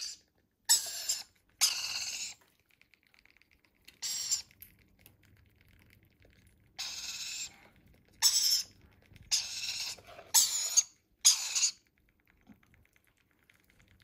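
Rainbow lorikeet chicks giving harsh, high-pitched begging calls while being spoon-fed formula, about eight short raspy bursts with gaps between them.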